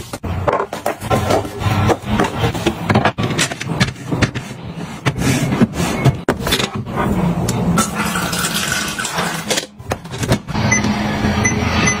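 Plastic containers, jars and snack packs being handled and set down on refrigerator shelves: a run of clicks, knocks and plastic rustling.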